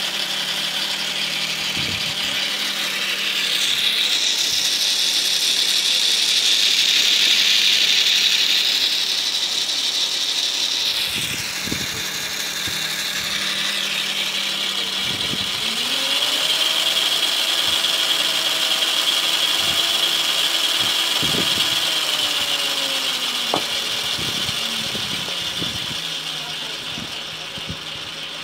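A small DC motor driving a homemade model engine's crankshaft and gear train, running with a steady whine over a clicking, rattling mechanism. Its pitch shifts several times: it drops about twelve seconds in, rises again a few seconds later, and sinks once more near the end.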